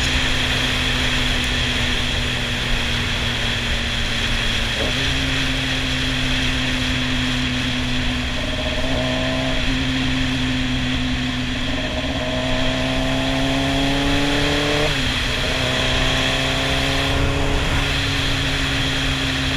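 Sportbike engine running at steady cruising revs while riding, under heavy wind rush on the microphone. Its pitch steps up about five seconds in, climbs slowly, then falls sharply about fifteen seconds in.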